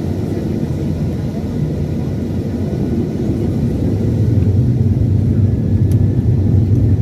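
Boeing 737-800 airliner's CFM56 engines and airframe rumbling, heard inside the passenger cabin; the deep rumble grows louder about four seconds in.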